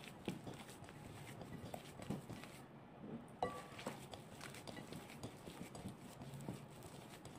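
Faint, irregular soft squishes and light knocks of hands kneading a crumbly oil-and-white-wine dough in a ceramic bowl, with a sharper tap against the bowl about three and a half seconds in.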